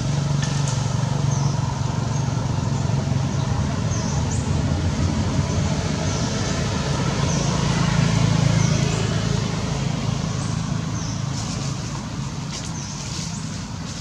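A steady low engine hum that swells about eight seconds in and then fades. Faint short high chirps repeat about once a second.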